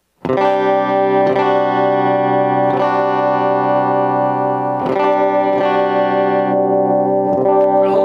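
JCraft S1H electric guitar played on its middle pickup alone with a clean tone: chords picked and left to ring, re-struck every second or two.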